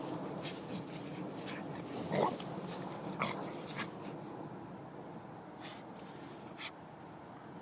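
A dog whimpering in two short cries, about two and three seconds in, with a few sharp clicks over a steady hiss.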